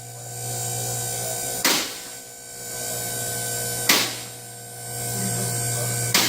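Two-post hydraulic car lift going up: the electric pump motor hums steadily, and a sharp metal clack sounds three times, about every two seconds, as the lift's safety latches drop over the lock stops.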